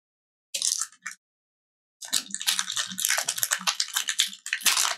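Foil wrapper of a Pokémon booster pack crinkling as it is torn open: two short crackles, then about three seconds of steady crackling and tearing.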